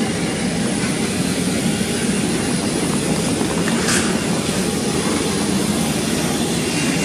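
Steady roar of jet aircraft noise across an airport apron, with a brief hiss about four seconds in.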